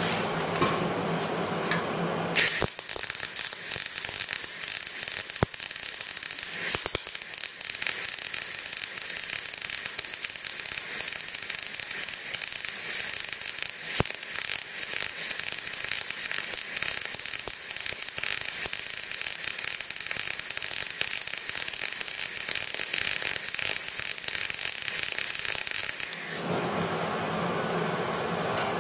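MIG welder arc crackling and hissing continuously while plug welding sheet steel, starting a couple of seconds in and cutting off near the end. A steady lower hum is heard before the arc strikes and after it stops.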